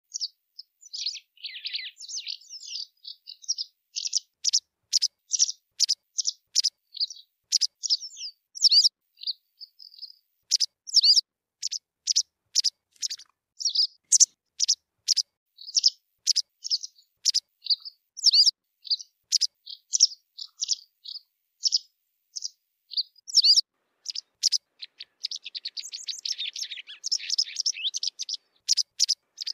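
White wagtail calling: a steady series of short, sharp high chirps, about two a second, breaking into a quicker twittering run near the end.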